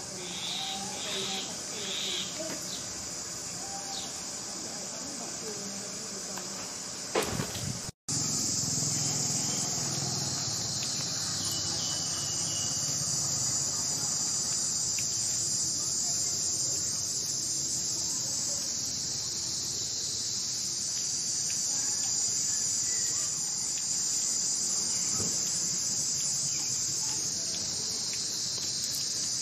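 Steady, high-pitched chorus of insects. A few short squeaks come in the first two seconds, and there is a brief dropout about eight seconds in.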